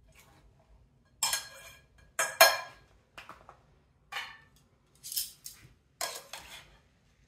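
Metal utensils clinking and scraping against a glass salad bowl and dishes, as a spoon adds cheese and metal tongs toss the salad. About eight separate clatters, the loudest about two and a half seconds in.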